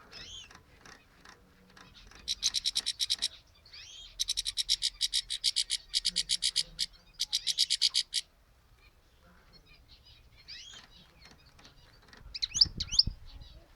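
European goldfinch calling and singing: upward-sweeping chirps and long runs of fast, evenly repeated high notes, about ten a second, with a brief rustle and a flurry of chirps near the end.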